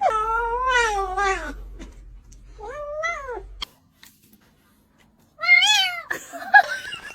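A kitten meowing three times: one long drawn-out meow falling in pitch, then two shorter meows that rise and fall.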